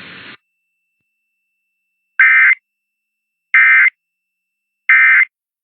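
Emergency Alert System end-of-message signal: three short bursts of raspy SAME digital data tones around 2 kHz, the 'NNNN' code that closes the test alert, each under half a second and about a second and a half apart.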